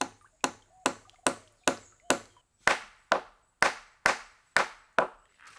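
Wood being chopped with a blade: a steady series of about thirteen sharp strikes, roughly two a second, each dying away quickly.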